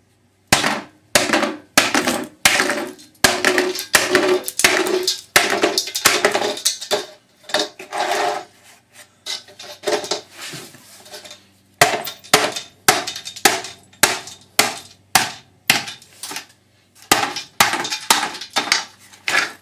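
Hammer blows knocking the plastic end tank off an aluminum radiator, struck one to two times a second with a couple of brief lulls, each blow ringing briefly.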